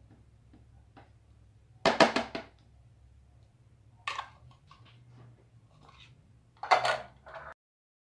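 A spoon knocking against a plastic blender jar to shake off butter: three short clusters of taps, about two seconds apart, over a faint steady hum.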